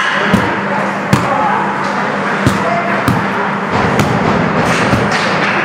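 Ice hockey play: sharp knocks of sticks on the puck and on the ice and boards, about six in a few seconds, over the steady echoing din and low hum of an indoor rink.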